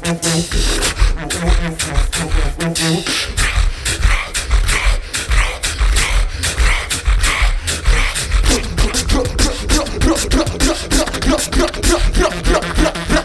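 Beatbox tag team of two performing live: a fast, dense pattern of vocal kicks, snares and hi-hats over heavy bass. A held low tone runs under the beat for the first three seconds, and short repeated pitched notes join from about eight seconds in.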